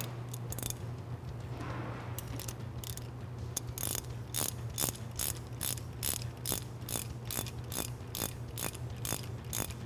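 Ratchet wrench clicking as it turns a fork cap tool on a WP 4CS fork cap. A few scattered clicks at first, then from about three and a half seconds in a steady run of about three or four clicks a second.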